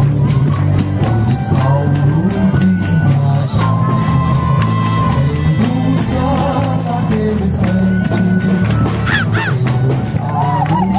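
Music with a steady beat and a bass line, and a voice singing over it.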